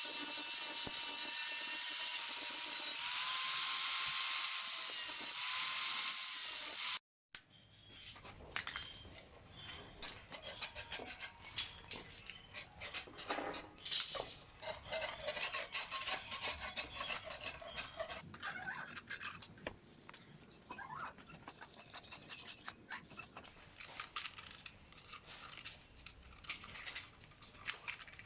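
A small power tool runs steadily for about seven seconds, then cuts off suddenly. Irregular hand scraping and rubbing on metal follows, with many small clicks, as rust is worked off.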